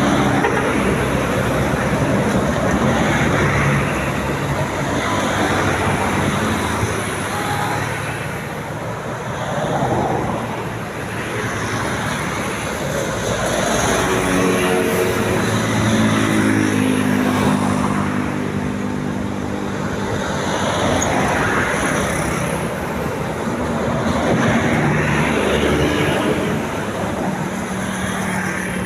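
Road traffic with tour buses passing, engines and tyres running steadily. From about halfway through, a bus's multi-note telolet horn sounds for a few seconds, stepping between pitches.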